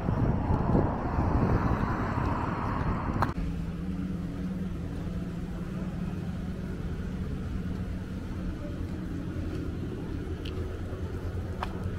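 Outdoor street ambience: a loud rush of wind and traffic noise that cuts off abruptly about three seconds in, followed by a steady low engine hum from a car driving slowly toward the microphone, with a few faint clicks near the end.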